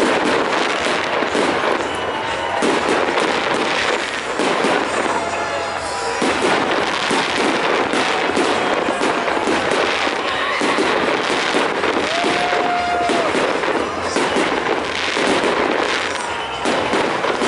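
A fireworks display: aerial shells and fountains going off in a dense, continuous crackle of bangs and pops.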